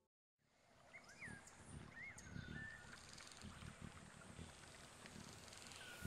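After a brief moment of dead silence, a faint forest ambience fades in. A few short whistled calls slide up and down about one and two seconds in, over a low rumble.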